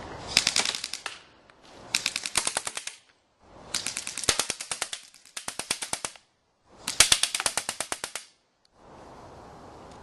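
Airsoft electric guns firing full-auto, in five rapid bursts of about a second each with short pauses between.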